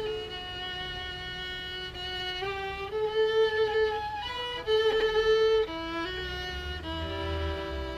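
Unaccompanied fiddle playing a slow traditional Irish tune, one bowed note at a time, each held about half a second to a second.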